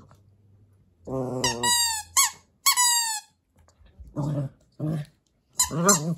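A squeaky rice-ball chew toy squeaking three times in quick succession, each squeak falling in pitch, as a puppy chews it. Low voice-like sounds come before and after the squeaks.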